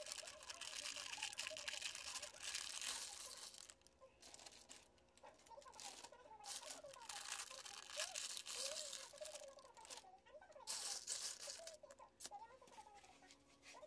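Thin plastic parts bag of Lego pieces crinkling as it is torn open and emptied, in bursts with short pauses.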